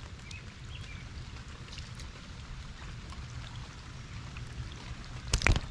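Creek water running steadily, with a brief loud clatter near the end.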